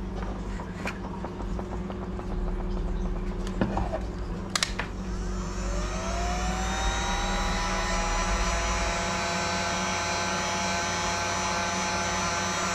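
Handheld Ace heat gun switched on with a click about four and a half seconds in, its fan motor rising in pitch to speed and then running with a steady whine, heating a lead jig head for powder painting. A steady low hum lies under it.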